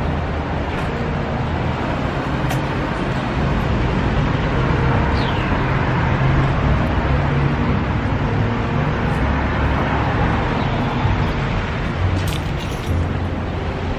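Street traffic noise on a city street: a steady hiss with a low rumble from cars passing.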